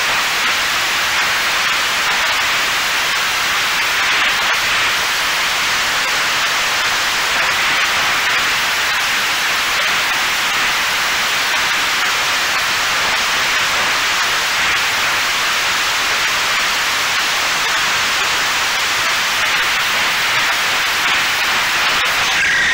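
Steady rushing hiss of wind over the onboard camera of a Mini Talon model plane in flight. A brief higher tone appears near the end as the plane drops into the treetops.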